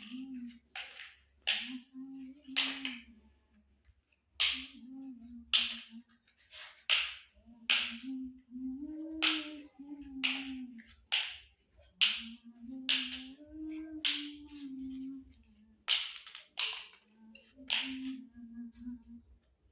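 Small plastic toy kitchen pieces being handled and set down, giving sharp clicks and taps about once a second. A low wavering hum comes and goes between them.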